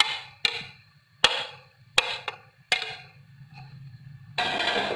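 About six sharp knocks of dishware against a plastic mixing bowl, each with a brief ring, as fruit is tipped off a plate into it. A short rustling burst comes near the end.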